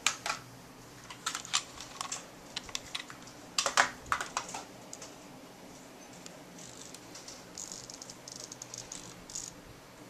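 Micro servos moving in short, jerky steps under thumb-joystick control: a string of irregular clicks and brief whirs. The bursts are busiest from about a second to five seconds in, then come quicker and lighter near the end.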